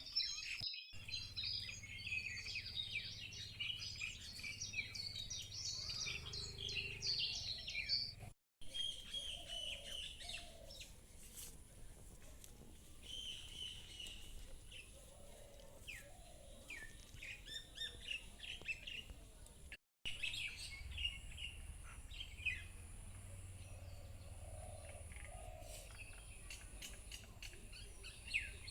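Several small birds chirping and twittering at once, quick overlapping calls over a low background rumble. The sound cuts out briefly three times, and after the first few seconds a faint high pulsing whine runs under the chirps.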